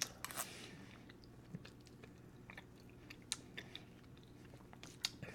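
Faint chewing: irregular soft wet clicks and smacks from a person's mouth.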